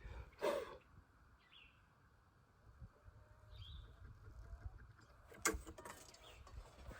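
Quiet outdoor ambience with a few short bird chirps. There is a brief loud sound about half a second in, and a couple of knocks near the end.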